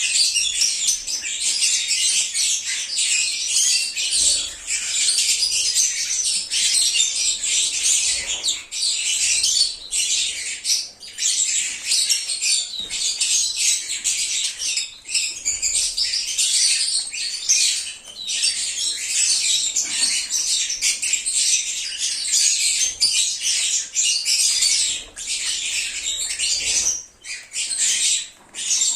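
A flock of lovebirds (Agapornis) chattering nonstop: dense, high-pitched chirping and squawking from many birds at once, with a few brief pauses.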